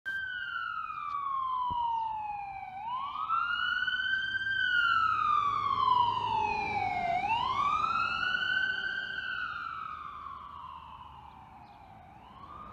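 Ambulance siren on a wail, its pitch sweeping slowly up and down about once every four to five seconds. It grows louder toward the middle and fades toward the end as the ambulance passes.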